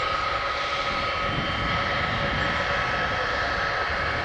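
Gulfstream G600 business jet taxiing, its two Pratt & Whitney PW815GA turbofans running steadily at taxi power: a steady high whine over a low rumble.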